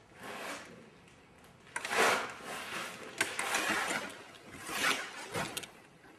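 Metal parts scraping and sliding in a few short strokes, like T-nuts or clamping parts being slid and handled on a metal surface.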